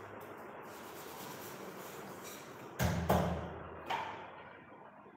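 Kitchen sounds at a counter: a steady rushing hiss, then a heavy knock a little under three seconds in, a second knock right after it and a lighter knock near four seconds, as a pot and utensils are handled.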